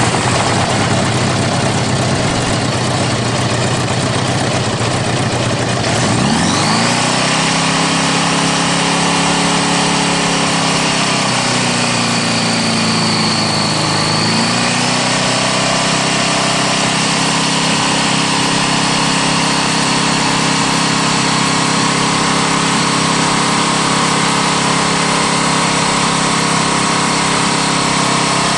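Honda GL1100 Gold Wing flat-four engine running just after start-up. Its sound is rough for the first six seconds, then settles into a steady running note, which dips briefly about halfway through and recovers. The owner suspects the engine has rod knock and is losing oil pressure.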